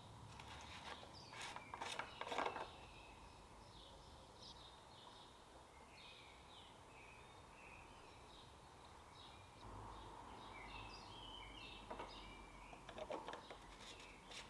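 Faint background with small birds chirping on and off, and a few light clicks and knocks about two seconds in and again near the end.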